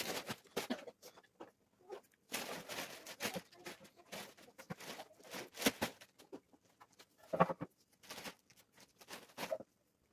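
Pine boards and a thin wooden stick being handled on a wooden workbench: irregular taps, knocks and short scrapes of wood on wood.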